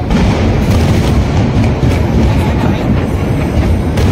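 Fireworks display in full barrage: a steady low rumble of overlapping bursts with rapid crackling over it.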